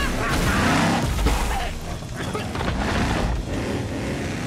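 Cartoon sound effects of a rockslide: a deep rumbling boom, strongest in the first second and a half, over monster truck engine noise and background music.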